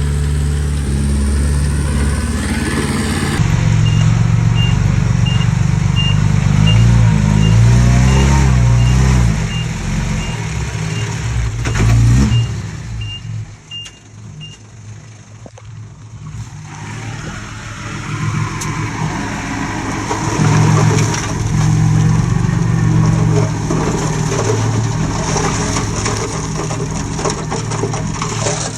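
Komatsu D20P bulldozer's diesel engine running under load, its pitch rising and falling as it works, with a reversing alarm beeping evenly for several seconds. The engine sound drops away briefly in the middle, then builds up again.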